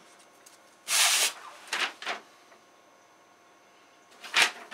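Paper instruction sheets rustling as they are picked up and handled. There is a longer rustle about a second in, two quick ones around two seconds, and one more near the end.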